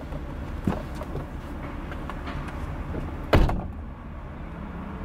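A car's driver door opening and, about three and a half seconds in, slammed shut with one loud thump, heard from inside the car.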